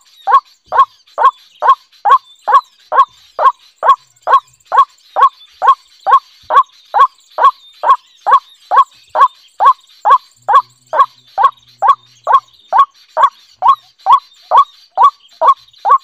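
White-breasted waterhen calling: one short note repeated over and over at an even pace, a little over twice a second, with no change in loudness or pitch.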